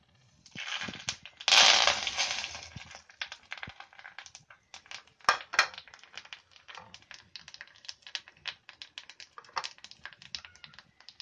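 Hot oil in a small steel tadka ladle sizzling loudly as asafoetida, cumin, mustard seeds and curry leaves are dropped in about half a second in, then settling into dense crackling and popping as the seeds splutter and the curry leaves fry.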